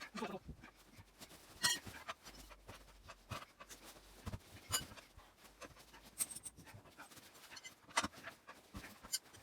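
A man breathing hard with effort, over scattered sharp metal clinks and knocks of bars working a tractor tyre off its rim.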